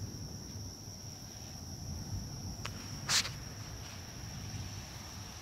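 Crickets trilling steadily in a high, unbroken tone over a low rumble. A faint click comes a little under three seconds in, followed by a louder, short sharp click.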